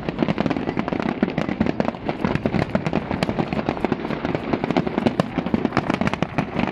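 Fireworks display: a dense barrage of aerial shells bursting, many bangs and crackles overlapping in a rapid, unbroken run.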